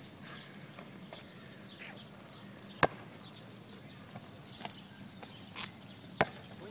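A basketball bouncing on an asphalt court: a few sharp thuds, the loudest about three seconds in, over steady high chirping of birds in the trees.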